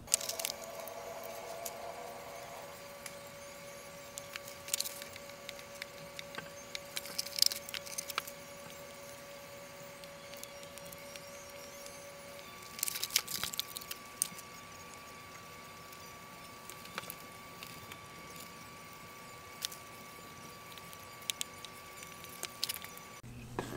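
Faint clicks and taps of model-airplane parts being handled on a workbench, in a few small clusters, over a faint steady hum.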